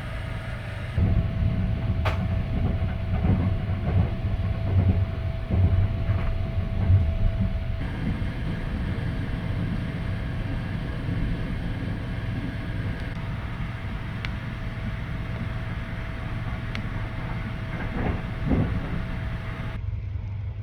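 Sunrise Express sleeper train, a 285 series electric train, running along the line with a steady low rumble and a faint steady whine. Uneven thumps and clacks from the wheels over the rails come in the first several seconds and again briefly near the end.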